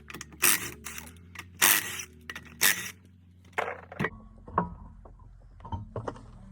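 Removing a minivan wheel: three loud, short scraping noises about a second apart, then lighter clicks and clinks of metal. A low steady hum underneath stops about four seconds in.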